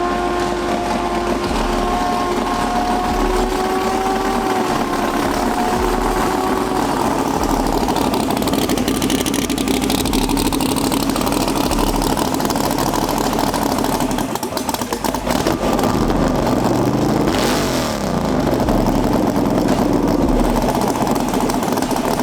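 Car engine revving: it climbs and holds at high revs for several seconds, then drops. Loud engine noise continues, with revs rising and falling again near the end.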